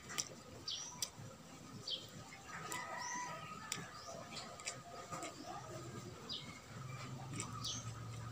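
Birds chirping with short high calls every second or two, over small clicks of a man eating fried fish and rice with his fingers. A low hum comes in near the end.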